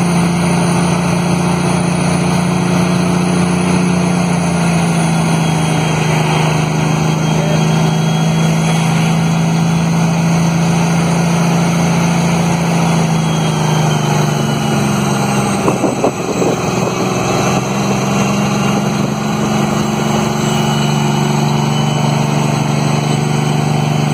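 Kenworth T800 tractor-trailer's Cummins ISX diesel running steadily on engine brake on a downhill grade, its note slowly sinking. About sixteen seconds in, the note briefly dips and breaks, then settles again.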